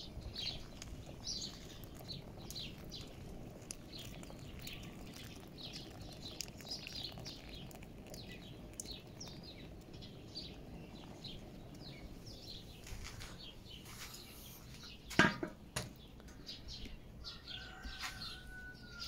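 Small birds chirping over and over, short falling chirps a few times a second, over a low steady rumble. A single sharp knock about fifteen seconds in.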